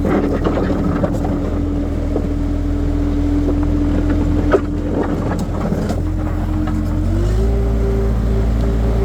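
Skid steer engine running steadily with a held whine that steps up in pitch about seven seconds in as the revs rise. A sharp click about four and a half seconds in.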